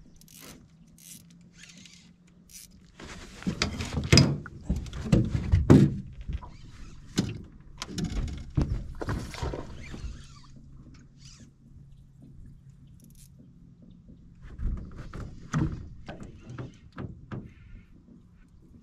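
Irregular thumps, knocks and clatter on the deck and hull of an aluminum fishing boat as an angler fights and lands a hooked fish, heaviest a few seconds in and again near the end, over a faint steady low hum.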